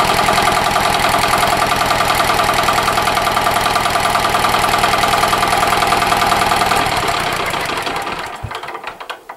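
Chinese 10 horsepower single-cylinder diesel engine on a Sears ST16 garden tractor, running steadily with an even beat. From about seven seconds in it slows and dies away as it is shut off.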